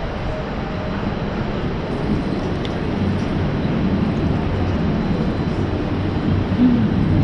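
Steady low rumbling noise heard from a bicycle riding through city streets, wind and traffic mixed, growing slightly louder toward the end.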